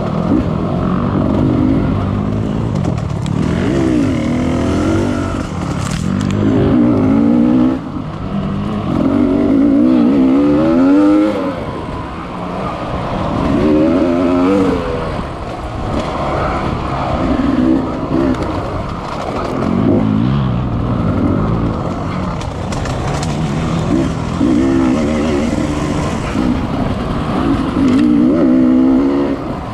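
Off-road dirt bike engine being ridden hard, its pitch repeatedly climbing and dropping every second or two as the throttle is worked on and off through the trail.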